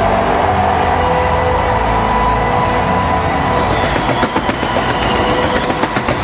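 Jet noise of a bomber formation (a B-1B Lancer, a B-2 Spirit and a B-52H Stratofortress) passing low overhead. It is a loud, steady rumble with a few held tones in it, turning uneven and fluttering in the last two seconds.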